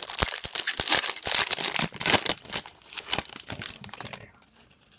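Foil trading-card pack wrapper being torn open and crinkled by hand, a dense run of crackles that dies away about four seconds in.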